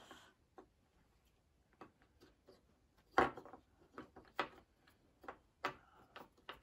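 Wooden jigsaw puzzle pieces, scroll-sawn from half-inch pine, clicking and knocking against each other and the wooden tabletop as they are fitted together: scattered light taps, the loudest a little over three seconds in.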